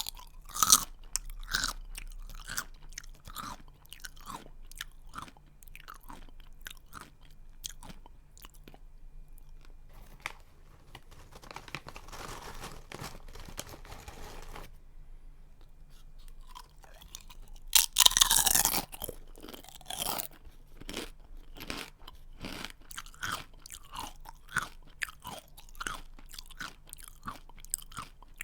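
Someone chewing a crunchy snack close to the microphone, with a string of crisp crunches. About two-thirds of the way through there is one louder burst of crunching.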